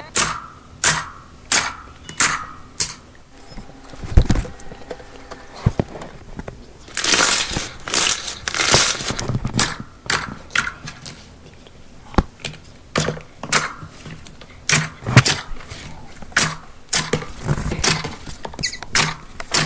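Slime being squeezed and poked by hand, giving irregular sharp pops and crackles, with a longer crackling stretch about seven seconds in.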